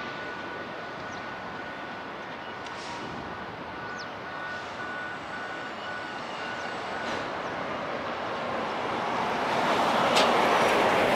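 A locomotive in a freight yard approaching, its running noise growing steadily louder over the last few seconds, with a sharp click about ten seconds in. Before that, a thin high tone sounds steadily, then breaks into short beeps and stops about seven seconds in.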